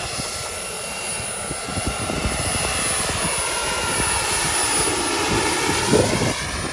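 Turbine-powered model helicopter, a Vario Hughes 500 with a JetCat PHT 3 turbine, flying past: a steady turbine whine with rotor noise, its pitch dipping and rising again as it passes close about four to six seconds in.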